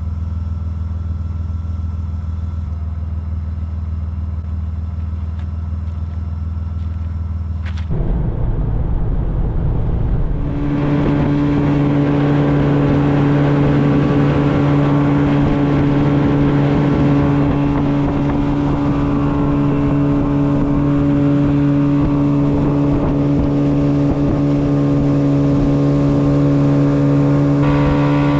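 An engine idling steadily, then changing note about eight seconds in and speeding up soon after to run steadily at a higher speed.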